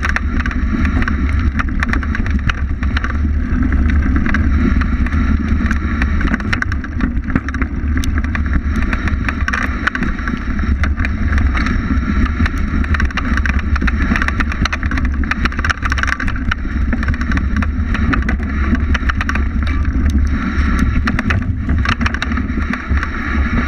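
Bike-mounted camera's sound on a fatbike descending a rough rocky trail: a steady rumble of wind buffeting and vibration, with constant rattling clicks as the bike and mount jolt over stones and roots.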